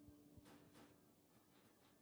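Near silence: room tone with a faint steady hum and a few faint soft clicks.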